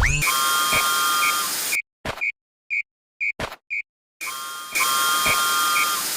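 Cartoon level-crossing warning alarm: short high beeps about twice a second over a steady hiss and held tones. It cuts off suddenly after under two seconds, leaving a few lone beeps, then starts again about four seconds in.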